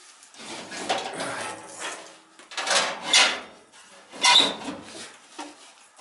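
Sheet metal scraping and rattling as hands work inside a gas furnace's blower compartment, in three bursts.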